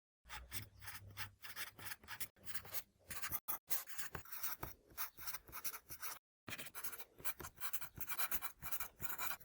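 A quick, irregular series of close scratchy rubbing strokes, about three or four a second, broken by a brief dead gap about six seconds in.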